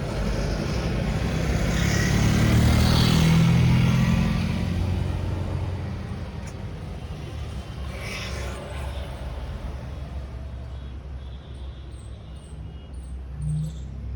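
A road vehicle passing close by: a low engine-and-road noise that builds to its loudest a few seconds in, then fades away into steady traffic hum.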